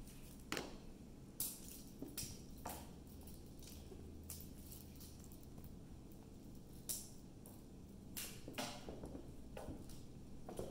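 Irregular sharp taps and light knocks of a cat's paws and body hitting a hardwood floor as it pounces and scrambles after a toy, about one every second or so, over a faint low hum.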